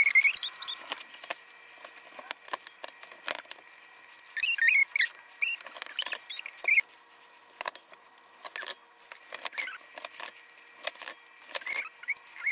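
A bench grommet press and loose brass grommets and washers: a run of sharp, irregular metal clicks and clinks, with brief jingling, as grommets are handled and pressed into canvas one after another.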